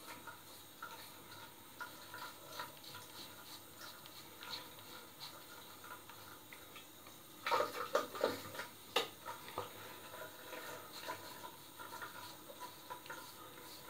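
Three-blade cartridge razor scraping through a month's growth of hair on the scalp: a quiet run of small scratchy crackles, stroke after stroke. About halfway through comes a brief, louder clatter of several knocks.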